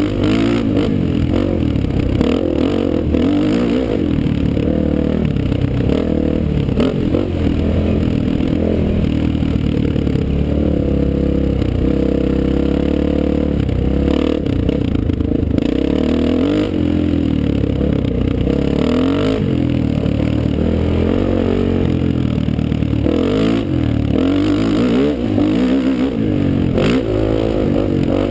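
Honda XR400R dirt bike's air-cooled single-cylinder four-stroke engine running under riding load, its revs rising and falling again and again as the rider throttles up and eases off along the trail.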